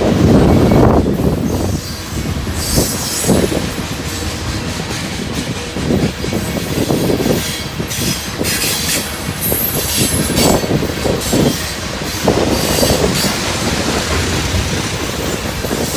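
Freight train cars rolling past, their wheels clattering over the rail joints with a steady rumble and scattered knocks.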